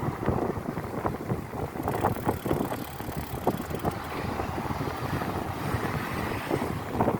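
Wind buffeting the microphone while riding a bicycle, with road and traffic noise in the background.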